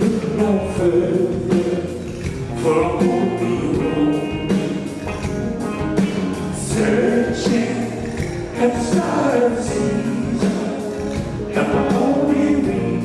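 Live rock band playing with a steady beat while a male lead singer sings over keyboard and guitar, heard from among the audience.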